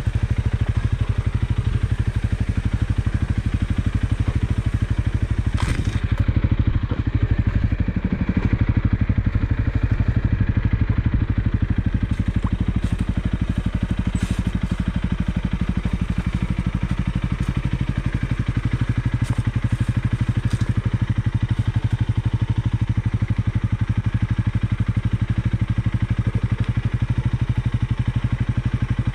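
Single-cylinder motorcycle engine running steadily at low speed on a slow off-road descent. A few sharp clicks and knocks come through, about six seconds in and again in the middle.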